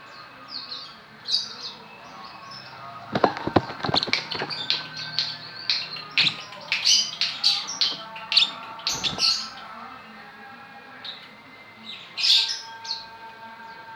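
Young lovebirds chirping in short, high, repeated calls, busiest in the middle. A few sharp knocks come at about three to four seconds in and again at about nine seconds.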